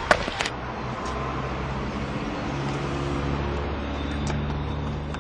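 A motor vehicle engine running with a steady low hum, after two sharp clicks right at the start.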